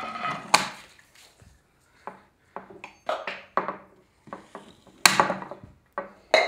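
Irregular sharp knocks and clatters, like a knife and fork striking a wooden tabletop, about a dozen of them with short gaps, the loudest about five seconds in. Music fades out in the first half-second.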